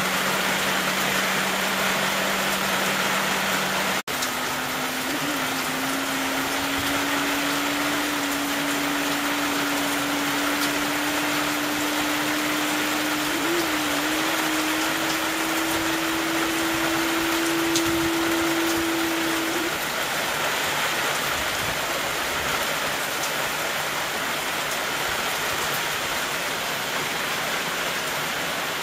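Heavy rain falling steadily. Over it a low hum breaks off about four seconds in, and then a new hum rises slowly in pitch and stops about two-thirds of the way through.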